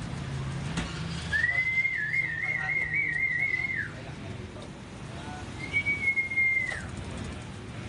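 Whistling: one long high note wavering up and down, then after a pause a shorter note that slides down at its end.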